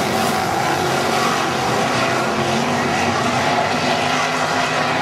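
Non-wing dirt sprint car engines running hard as the cars race around the track, a steady loud drone with pitches that shift slightly as the cars go through the turns.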